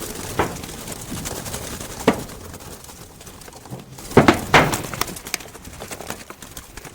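Caught doves flapping their wings, heard as short sharp flutters: a few scattered ones, then a quick burst of three about four seconds in.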